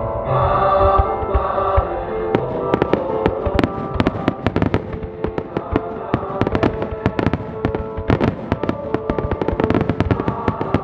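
Aerial fireworks shells bursting in a rapid volley of many sharp bangs, thickening from about two seconds in, over music with long held tones.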